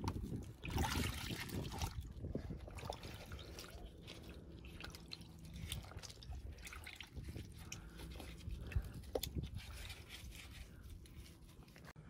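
Soapy water sloshing and dripping in a bucket as a gloved hand scrubs a seat belt soaking in it. The splashing is liveliest in the first couple of seconds.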